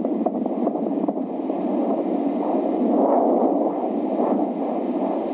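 Recorded fetal heartbeat from an AngelSounds ultrasound fetal Doppler: a rapid whooshing pulse under steady static hiss, the hiss swelling around the middle.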